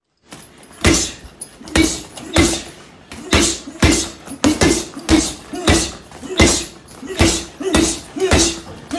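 Boxing gloves landing punches on a leather heavy bag: a steady run of thuds, about two a second.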